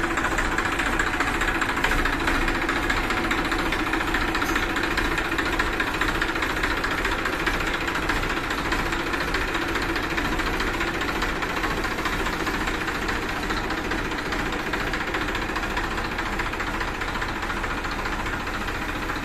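Massey Ferguson 241 DI tractor's Simpsons 2500 cc diesel engine running steadily, easing off a little in loudness over the second half.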